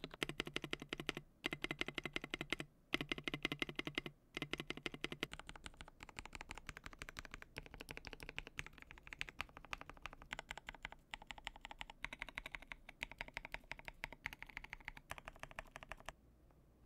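Typing on a KBD67 Lite 65% mechanical keyboard with a polycarbonate plate and lubed switches: quick runs of keystrokes with short pauses. The tone of the keystrokes changes about five seconds in. Typing stops near the end.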